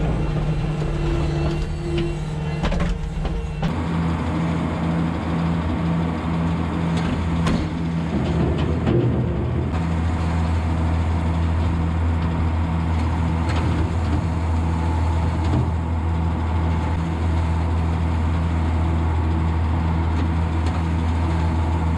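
A loader engine running for the first few seconds, then a Patz TMR feed mixer running loaded with silage: a steady low machine drone with a regular pulsing above it.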